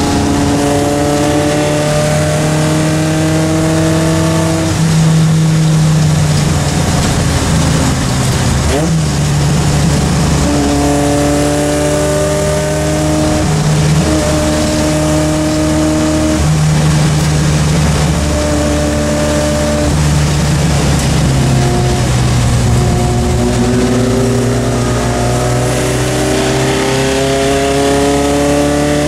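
Triumph Spitfire Mk3's 1.3-litre four-cylinder engine heard from inside its cabin, driven at moderate pace with its pitch climbing slowly and stepping at several gear changes, over road and wind noise.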